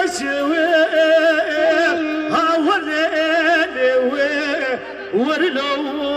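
Kurdish folk music played on a bağlama (saz) and an electronic keyboard: a wavering, ornamented melody over held notes.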